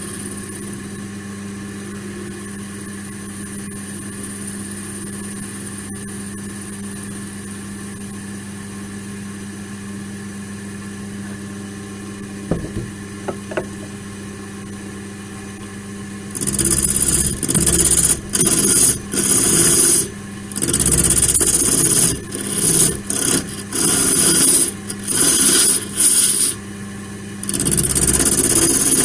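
Wood lathe motor running with a steady hum, with a few light knocks about twelve seconds in. From about sixteen seconds, a tool is pressed against the spinning laurel blank in repeated passes: loud scraping bursts of about a second with short gaps.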